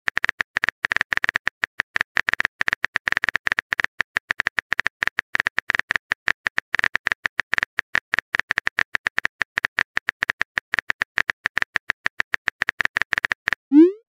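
Simulated phone keyboard typing sound effect: a quick, irregular stream of sharp clicks, one for each letter typed. Near the end a short rising whoosh marks the message being sent.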